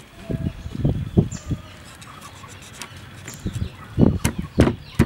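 Steel cleaver knocking and scraping against a whole fish on a wooden cutting board. A run of dull knocks comes in the first second and a half, and another cluster about four seconds in.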